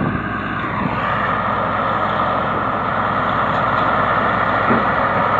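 Truck-mounted water well drilling rig running, a loud, steady mechanical noise that does not let up.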